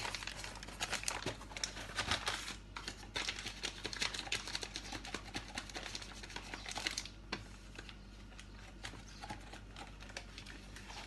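Paper inner bag of a cornflour box rustling and crinkling as it is handled and tipped to shake cornflour out, with many small clicks and taps. The rustling is heavier in the first two seconds or so and again about seven seconds in.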